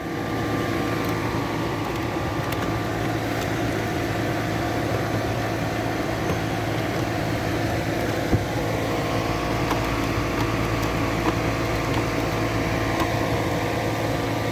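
Steady machine hum with several held tones over an even noise, and a single sharp click a little past eight seconds in.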